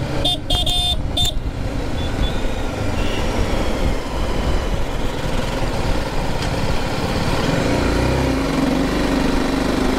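Motorcycle being ridden on the road, the engine running under wind and road noise, with a few short horn beeps about a second in. The engine note rises near the end as it picks up speed.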